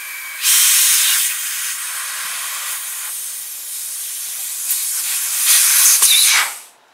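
Nitrogen hissing out of a mini-split indoor unit's small copper refrigerant line as its brass flare cap is loosened. The steady hiss gets louder about half a second in, surges again near the end, then stops abruptly. Nitrogen coming out is the sign that the coil still holds its factory pressure-test charge.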